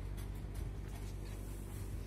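A steady low hum with a few faint, short soft ticks and rustles over it.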